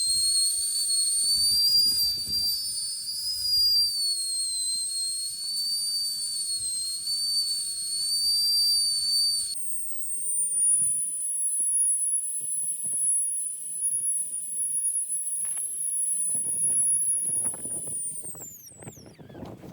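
A long, high, wavering whistle that jumps to a higher pitch about halfway through, then slides down and dies away near the end.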